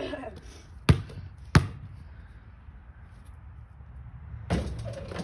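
Basketball bounced twice on a paved driveway: two sharp, heavy thuds about two-thirds of a second apart. A softer, noisier stretch follows near the end.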